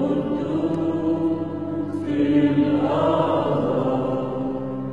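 A group of people singing a slow Arabic hymn together in unison, on long held notes.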